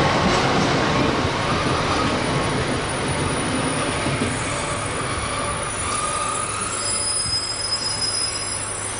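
JR Hokkaido 789 series electric limited express running through a station at speed: a steady loud rush and rumble of wheels on the rails that slowly eases off.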